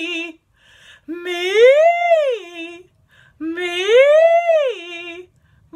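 A woman's voice singing vocal warm-up sirens. The end of one glide is followed by two more, each sliding smoothly up in pitch and back down, with short pauses between them.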